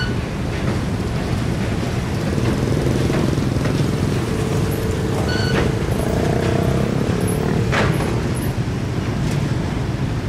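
Heavy engines running with a steady low rumble, with a faint hum rising over it in the middle.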